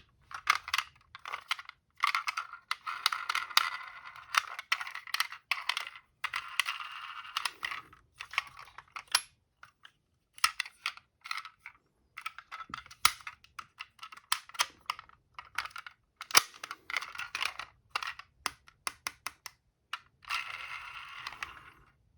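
Tomica die-cast toy cars rolling down a slope and knocking against each other: a stream of irregular clicks and clacks, with several stretches of a second or two of rattling rolling noise, the last near the end.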